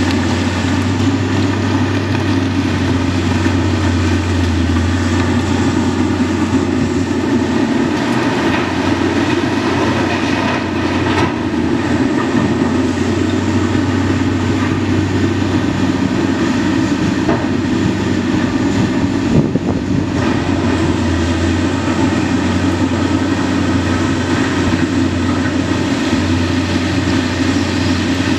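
Heavy diesel engines of a Demag H95 hydraulic excavator and a FAUN K85.5 dump truck running steadily, the excavator working as it swings and digs at the rock face. A couple of faint knocks come through about midway and again later.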